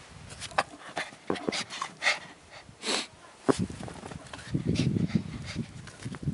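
Small dog hopping about on its hind legs in snow: a run of short clicks and crunches, with a breathy rush about three seconds in and a louder low rustle around five seconds in.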